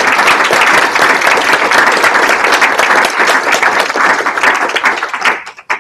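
Audience applauding at the end of a talk, dense clapping that thins out and stops shortly before the end.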